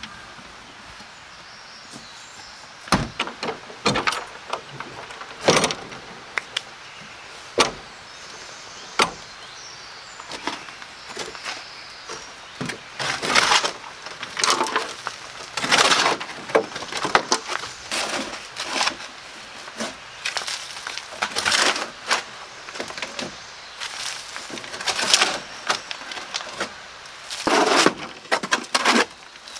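A shovel scraping and scooping loose soil in a pickup truck's bed, in repeated strokes through the second half. Earlier, a series of sharp knocks and thuds.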